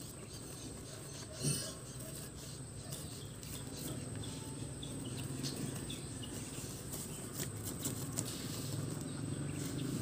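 Outdoor ambience with a steady, high insect drone, crickets, under light scratching and scuffling as puppies dig in loose dirt; a brief louder bump about one and a half seconds in.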